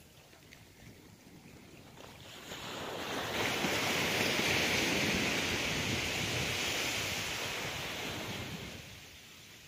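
A sea wave breaking and washing up a sand beach: the hiss of surf swells about two seconds in, holds for several seconds and dies away near the end.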